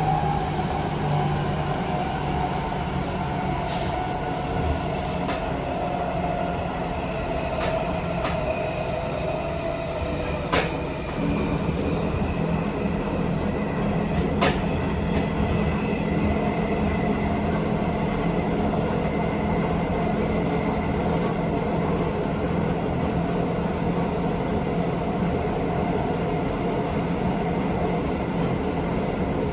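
Seibu 20000 series train from inside the car: its Hitachi IGBT-VVVF inverter whines in a tone that falls slowly over about the first ten seconds, over steady running noise. A couple of sharp clicks come about ten and fourteen seconds in.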